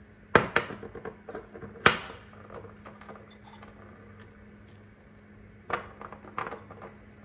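A cooking spoon knocks and clinks against a metal pot of soup: a few sharp knocks about half a second in and again near two seconds, then another small cluster near the end. A faint steady low hum runs underneath.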